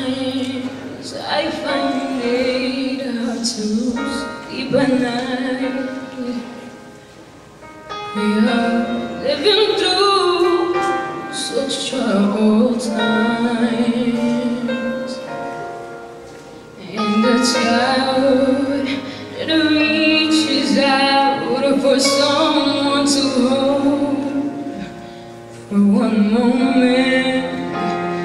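A young woman singing solo into a handheld microphone over instrumental accompaniment. She sings in long phrases, with brief dips between them about a third and two-thirds of the way through and again near the end.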